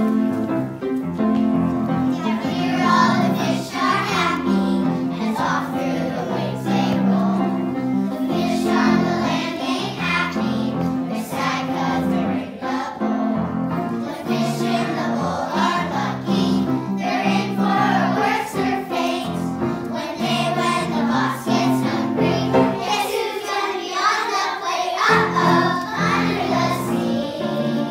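Young children's choir singing together over accompaniment music.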